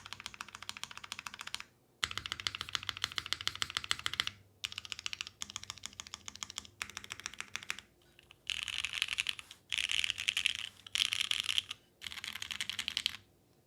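Custom mechanical keyboard with new-old-stock vintage Cherry MX Black linear switches, a float-mounted carbon fiber plate, no dampening and GMK keycaps, typed on fast in several runs of rapid keystrokes broken by short pauses; the last few runs are louder.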